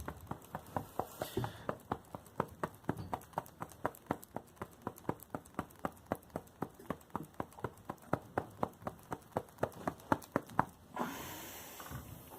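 Steady rhythmic tapping, about four sharp taps a second, which stops about eleven seconds in and gives way to a brief rustling noise.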